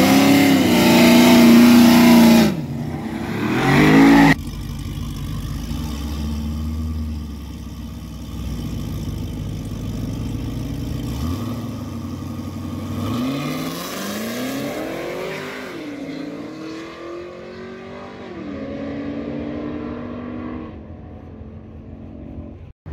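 Cadillac CTS-V wagon's supercharged 6.2-litre V8 revved hard twice at the starting line, then running lower while staged. About 13 seconds in it launches, the engine note rising through two upshifts as the car pulls away down the drag strip and fades.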